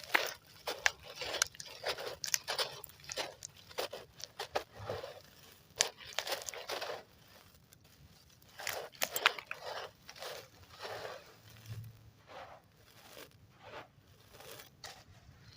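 Chunks of cement and sand cement being crushed in water: a run of irregular gritty crunches, dense at first and growing sparser and quieter toward the end.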